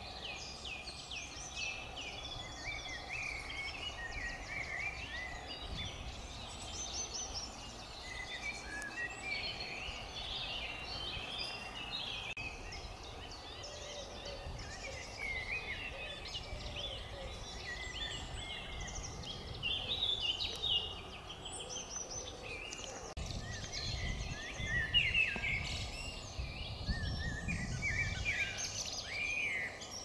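Several songbirds singing at once: a dense, unbroken chorus of overlapping chirps and trills, with a low rumble in the second half.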